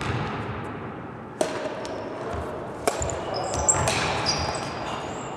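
Badminton rally: three sharp racket hits on the shuttlecock, about a second and a half in, near three seconds and just after, each ringing in the echo of a large gymnasium, with brief high shoe squeaks on the wooden floor around the third hit.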